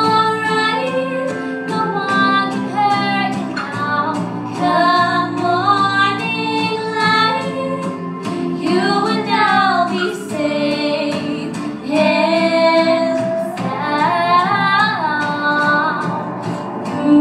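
Young girls' voices singing a slow melody over a steady instrumental backing.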